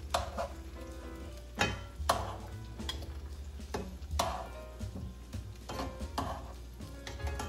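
Tomato slices sizzling in olive oil in a frying pan while tongs flip them, clicking and scraping against the pan about six times.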